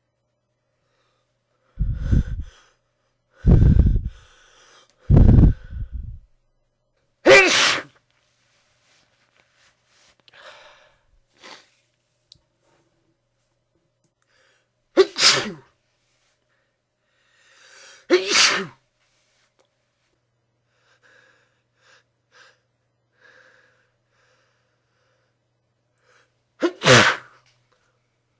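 A person sneezing repeatedly into a handkerchief, seven sneezes in all. The first three come in quick succession and sound heavier and lower. The last four are sharper and more spread out, with faint breaths and inhales between them.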